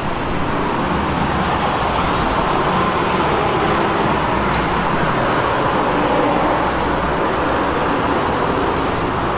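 Steady road traffic noise from cars on the street alongside.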